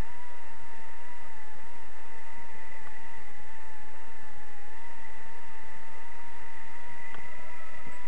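Wind rushing over the camera microphone in paraglider flight, steady throughout, with a steady high tone that wavers slightly in pitch above it.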